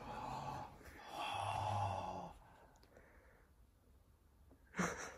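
Two breathy exhalations like sighs: a short one at the start and a longer one about a second in.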